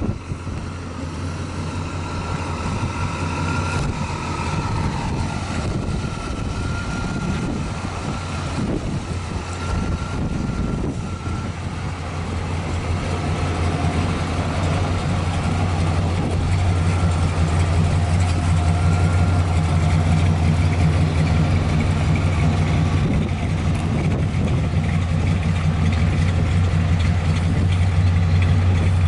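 1965 Pontiac GTO's 389 V8 with Tri-Power carburettors idling steadily, the low exhaust note growing louder about halfway through and staying even after that.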